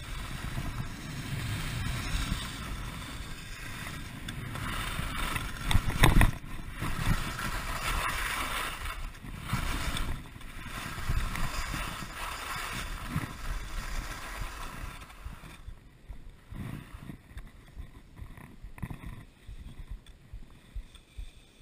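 Skis scraping and chattering over a rock-hard, frozen piste at speed, with a loud knock about six seconds in as a ski hits a bump. The sound dies down near the end as the skier slows to a stop.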